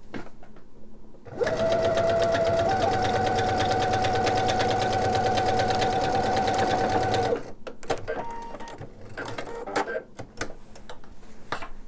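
Pfaff Quilt Ambition 630 electric sewing machine sewing a straight-stitch seam: it starts about a second in, runs at a steady speed with a held humming tone for about six seconds, then stops. A few light clicks follow as the work is handled at the machine.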